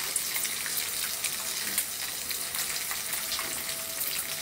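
Chicken pieces frying in hot oil in a pan, sizzling steadily with small crackles, while a wooden spatula stirs and turns them.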